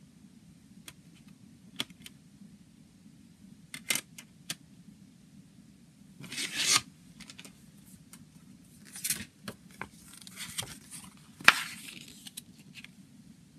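Plastic CD jewel case being handled: scattered light clicks, then rustling and sliding of the paper booklet as it is pulled out of the case and opened, with a sharp click near the end.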